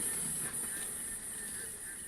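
Bird calls: short arched notes repeating several times a second over a steady high-pitched buzz.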